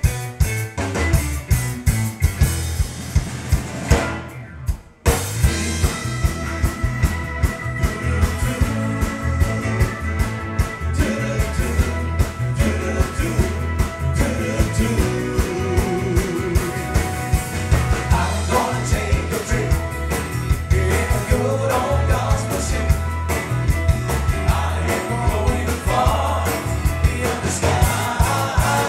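Up-tempo song played by a band with a drum kit keeping a steady, fast beat. The music drops out briefly about five seconds in, and singing comes in around twenty seconds in.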